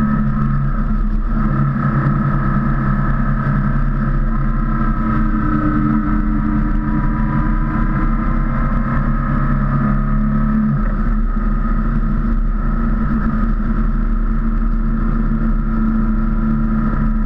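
BMW R1200C motorcycle's boxer-twin engine running steadily while riding at cruising speed; the engine note changes about ten and a half seconds in.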